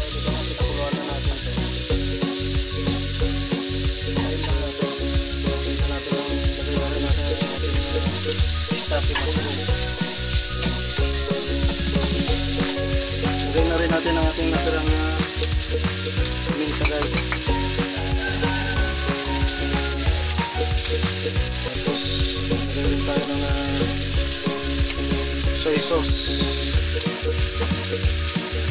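Beef strips and sliced shiitake mushrooms sizzling steadily as they stir-fry in hot oil in a non-stick wok, with a wooden spatula scraping and turning them now and then.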